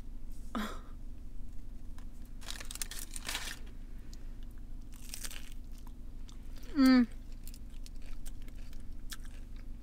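Crunching bites and chewing of a crispy chicken taco whose shell has cheese crisped onto the outside, in several crackly bursts. About seven seconds in comes a short rising "mm" from the eater.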